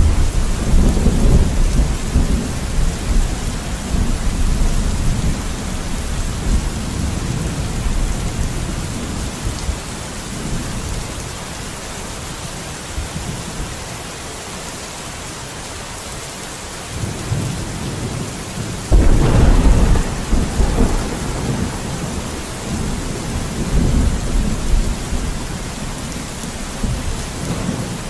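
Thunderstorm: steady rain hiss with rolling thunder. A low rumble at the start dies away by the middle, then a sudden thunderclap about two thirds of the way in rumbles on to the end.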